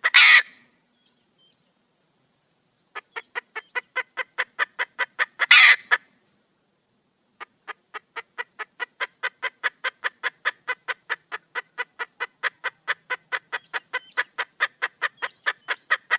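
Red junglefowl hen cackling: runs of quick, even clucks, about five a second, each run ending in one loud, longer squawk. A squawk ends right at the start, another run of clucks peaks in a squawk about five and a half seconds in, and a long run of clucks fills the rest. The cackle is presented as a hen calling for a male.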